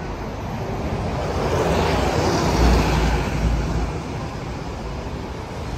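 City bus engine and road noise, swelling to a peak around the middle and then easing off.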